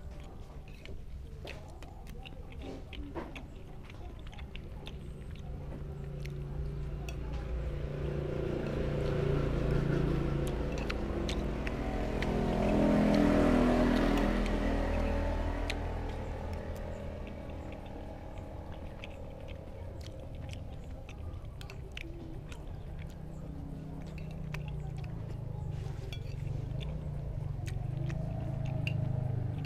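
A motor vehicle passes by, its engine growing louder to a peak about halfway through, then fading. Small clinks of a metal spoon against a ceramic plate and chewing sounds come and go throughout.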